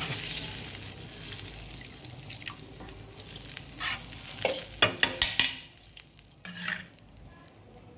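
A steel spoon stirring chana dal and water in a pan on the stove, while the sizzle from water poured into the hot oil tempering dies down. Several sharp clicks of the spoon against the pan come about five seconds in.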